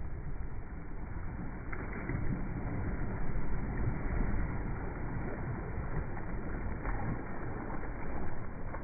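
Small waves lapping and washing up onto a sandy shore, with a low rumble of wind on the microphone.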